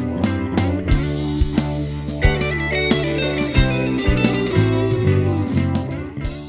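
Overdriven electric guitar played through a Chevtone Messiah Drive, a British amp-style overdrive pedal, with sustained crunchy chords and a run of higher notes. It fades out near the end.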